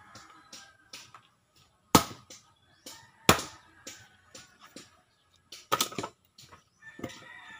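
Axe splitting firewood on a chopping log: three loud, sharp chops, the last a quick double strike, with lighter knocks of wood between.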